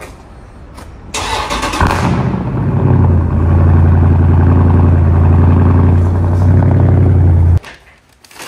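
A car engine cranks and catches with a loud burst about a second in, then settles into a steady, deep idle. The sound cuts off abruptly near the end.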